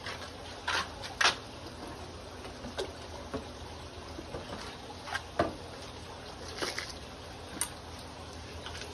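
Aquarium water trickling steadily, with a few short sharp clicks and knocks scattered through it.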